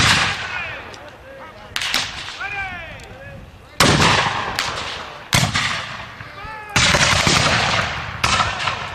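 Black-powder muskets firing blank charges one after another: six separate reports, roughly every second and a half, each a sharp bang that rolls off in a long echo across the open field.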